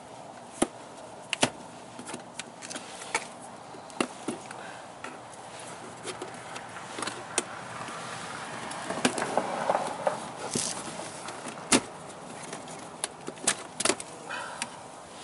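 Plastic trim clips of a 2017 Toyota RAV4's lower dashboard panel snapping and popping as the panel is pried loose with a plastic trim tool: a string of sharp, irregular clicks, with a stretch of scraping and rubbing about two-thirds of the way through.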